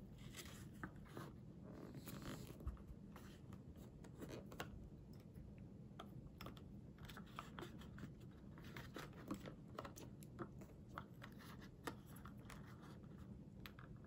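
Faint close handling of a cup noodle's lid: it crackles as it is pressed down over the cup. Then come many light scattered taps and clicks as small figurines are set on the lid and adjusted.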